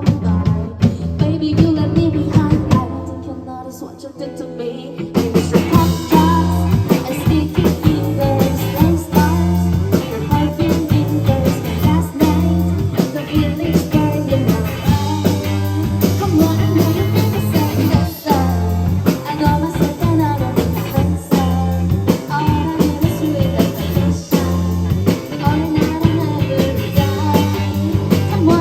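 Rock band playing live with electric guitar, bass and drums. The band drops back to a sparser, quieter passage about three seconds in, then comes back in at full strength about two seconds later.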